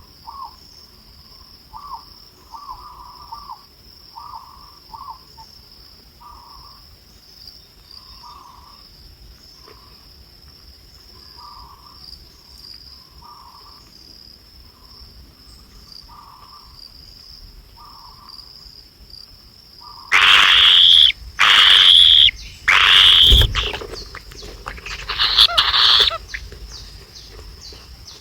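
Birds calling over a steady high buzz: a soft call repeats about once a second, then four loud, shrill calls come in quick succession about two-thirds of the way through, followed by a softer burst of calling.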